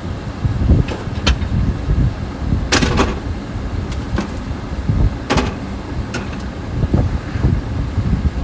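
Steady low rumble of road traffic with several short knocks and clanks, one longer clatter about three seconds in.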